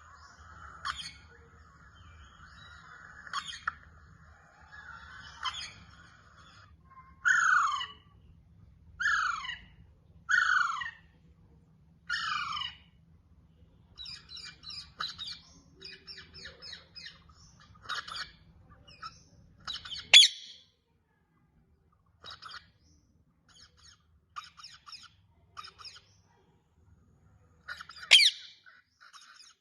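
Parrots squawking and chattering, with four loud downward-sliding calls between about 7 and 13 seconds in and two sharp, loud screeches around 20 and 28 seconds in.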